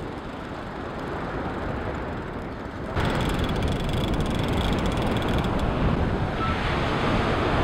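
Wind buffeting the microphone over the sound of surf. About three seconds in it gets louder and a faint rapid ticking joins it, from the Shimano Tiagra big-game reel being cranked against a hooked shark.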